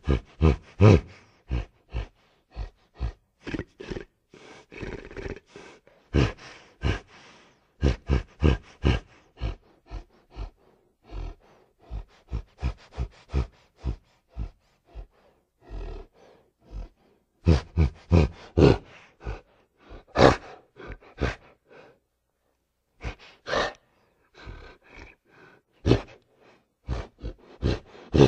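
A man's voice imitating a gorilla: a long run of short grunts and roars, one after another, broken by a few pauses of about a second.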